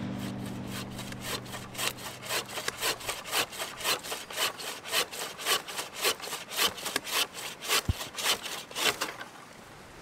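Folding hand saw cutting through a fallen log in quick, even strokes, about four a second. It stops about nine seconds in.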